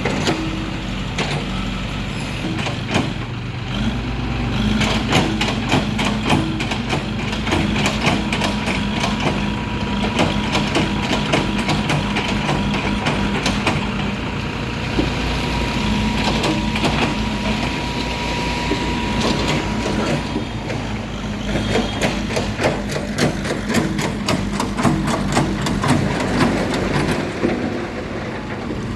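Heavy diesel engine running steadily under work, with a dense rattle of rapid clacks and knocks over it. A faint steady whine sounds for about twelve seconds in the middle.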